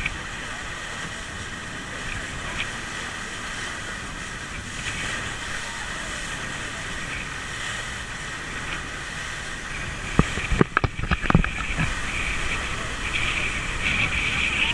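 Fast motorboat running upriver: a steady rush of wind and water on the move. About ten seconds in comes a cluster of sharp, loud thumps.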